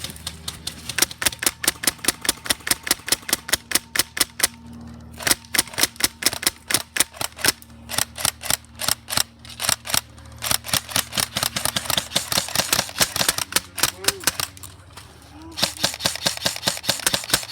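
Airsoft gun firing on full auto: long strings of rapid, evenly spaced shots, in several bursts with short pauses between them.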